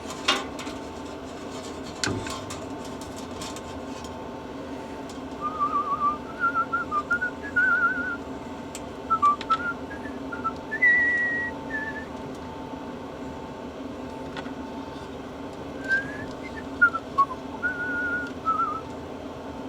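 A man whistling a tune to himself in short wavering phrases, in two stretches with a pause between, over a steady hum.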